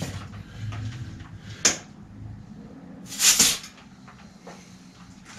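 Floor pump at a road-bike tyre: a sharp click about a second and a half in, then a loud burst of air hiss about three seconds in, as the pump is worked on the tyre valve.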